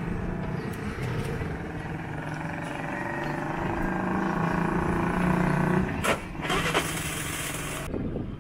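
Motor vehicle engine running, its pitch drifting up and down, with a burst of hissy wind or road noise about six seconds in; the sound cuts off abruptly at the end.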